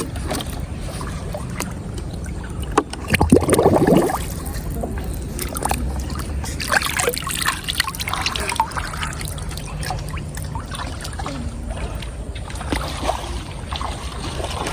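River water trickling and splashing as plastic-bottle fish traps are handled and set in it, with a louder splash about three seconds in and small knocks of handling throughout.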